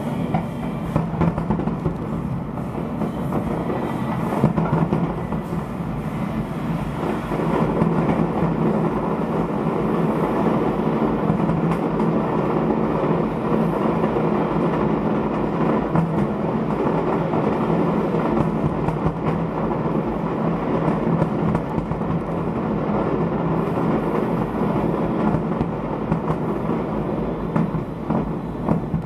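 A fireworks display bursting without pause, its many bangs and crackles merging into a steady rumble.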